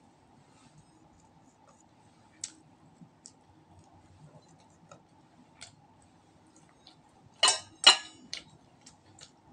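Eating sounds as roast duck is eaten by hand close to the microphone: scattered small clicks of chewing and handling, with two louder crackling clicks in quick succession about three-quarters of the way through.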